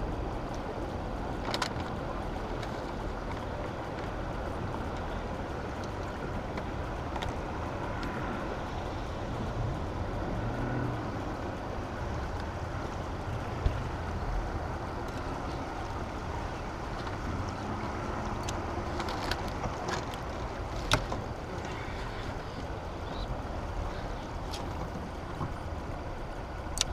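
Steady rush of turbulent water pouring from a dam's open spillway gates around a drifting boat, with a few sharp clicks and knocks, the loudest about halfway through and again about three quarters in.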